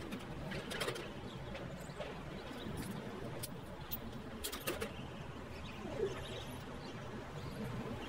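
Slide-hammer puller working on a Cat C9 injector sleeve: a few sharp metal clanks, with a quick cluster of them about four and a half seconds in, over a low steady background hum.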